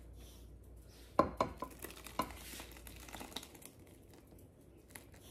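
A stainless steel saucepan and spatula clinking sharply against glass baking dishes four or five times as blackberry filling is poured out, followed by the soft wet slosh of berries and syrup sliding into the dish.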